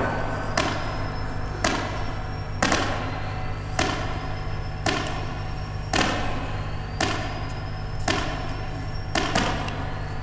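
Heavy thuds in a steady beat of about one a second, each with a ringing tail, over a low steady hum.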